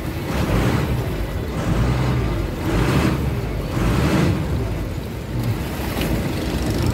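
Small river boat's engine running steadily, with rushing swells of water against the hull about once a second as it motors along.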